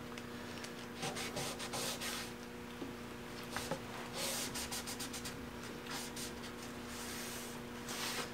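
Cloth rag rubbing and scrubbing across a freshly stained wooden cabinet door in runs of quick strokes, wiping off excess stain that has puddled in the panel's corners. A faint steady hum runs underneath.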